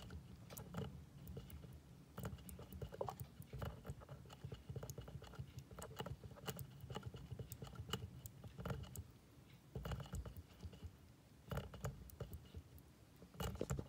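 Hamster drinking from the metal spout of a hanging water bottle, licking it in a rapid, uneven string of small clicks and ticks.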